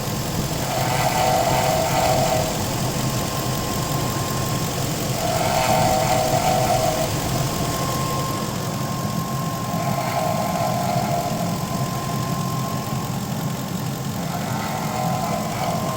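2002 Infiniti Q45's V8 engine idling with a steady whine, and a second tone that swells and fades about every four to five seconds. The owner takes the noise for the water pump, which has been making it since the engine overheated.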